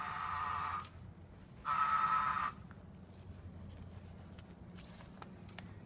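High-pitched electrical buzzing whine from a Citroen C5 X7 2.2 HDi, the unexplained extraneous noise the owner is hunting. It cuts out under a second in, comes back for about a second, then stops, leaving a faint hum and a few soft clicks. The owner rules out the hydraulic suspension pump as its source.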